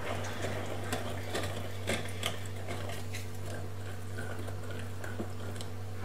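Wire whisk beating thick cake batter in a glass bowl, its wires clicking irregularly against the glass. A steady low hum runs underneath.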